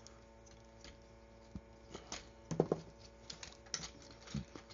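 Hard plastic parts of a DNA DK-54 toy upgrade kit being handled and pegged together: irregular light clicks and taps, with a few sharper snaps in the second half.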